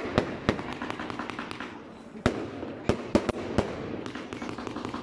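Consumer firework batteries (Riakeo Glück und Seligkeit 2 and Tsunami 2) firing, their shells bursting in sharp bangs: two just after the start, then a quick run of about five from around two seconds in.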